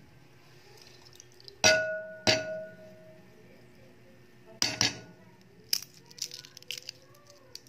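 A hard-boiled egg tapped twice against a glass bowl to crack its shell, the bowl ringing after each sharp clink, then two softer taps. After that comes a run of small crackles as the cracked shell is peeled away.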